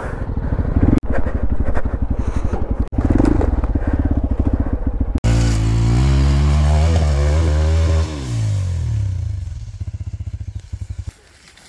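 Hero Xpulse 200 4V motorcycle engine running hard on a dirt trail, pulling at low speed. A little past halfway it revs up, holds, then falls back, settling to slower idle-like beats before cutting much quieter just before the end.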